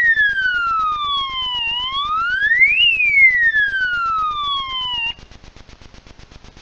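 Electronic siren of an ANIDERS animal-deterrent unit, wailing in slow sweeps: a quick rise in pitch, then a longer fall, about twice. It cuts off suddenly about five seconds in. It is the alarm the device sounds to scare wild animals off farmland.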